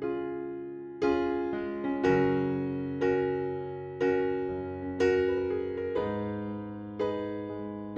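Background piano music: slow chords, with a new chord struck about once a second and each left to fade out.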